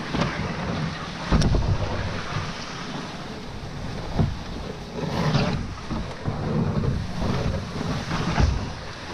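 Loaded canoe being dragged over lichen and brush, heard from inside the hull: a continuous scraping rush broken by several irregular knocks and bumps.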